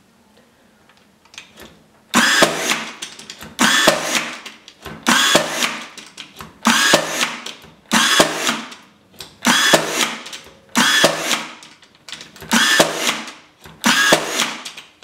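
Ryobi P326 AirStrike 16-gauge cordless finish nailer firing nails into soft wood, one shot after another about every one and a half seconds. Nine shots in a row begin about two seconds in, and each sounds as a sudden burst that fades over about a second. All nails drive fully, with no jams.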